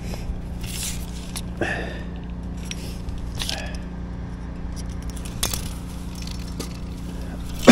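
Light scrapes and a few sharp clicks from a fishing pole and tackle being handled, over a steady low hum.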